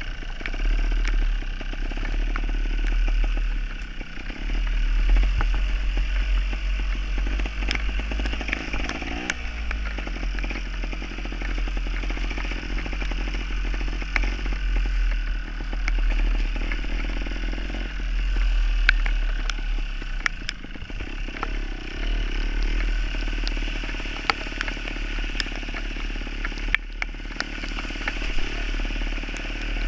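Gas Gas trials motorcycle's two-stroke engine running under way, its pitch rising and falling as the throttle is worked, with occasional sharp clicks over the top.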